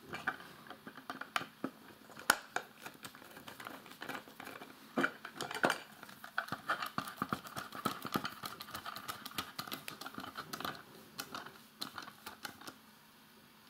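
A small screwdriver driving a 3x12 screw into a 3D-printed plastic housing: scattered clicks and taps of the screw, driver and plastic parts being handled, with a denser stretch of fine rapid clicking around the middle as the screw is turned in.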